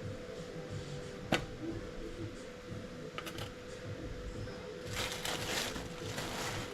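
A knife scraping garlic butter across slices of bread, with a sharp click about a second in and a few lighter clicks, then a longer rough scraping near the end. A faint steady hum runs underneath.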